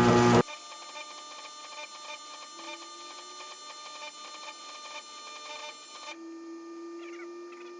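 Welding machine running with its cooling fan, a steady electrical hum. A louder, fuller version of the hum cuts off abruptly about half a second in, leaving the quieter hum.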